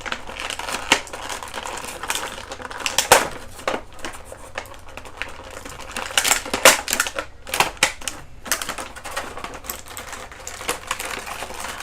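Plastic toy packaging being handled and pried open: irregular clicks, snaps and crinkles of plastic tray and blister as a figure is worked free.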